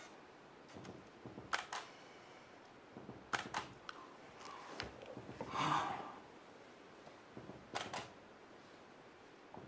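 Camera shutter clicks, several scattered quick double clicks of a single-lens reflex camera, over a quiet background, with a soft breathy rush about halfway through.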